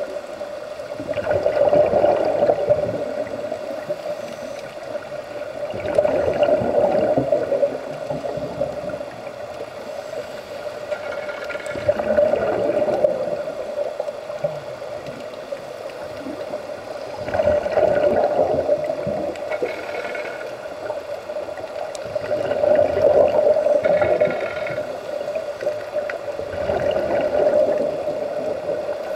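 Scuba divers breathing through their regulators underwater: a gurgling burst of exhaled bubbles comes about every five seconds, six in all.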